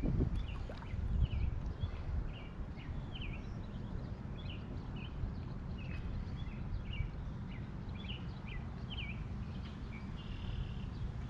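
Birds chirping repeatedly in short, curved calls, about one or two a second, over a low steady rumble of wind on the microphone.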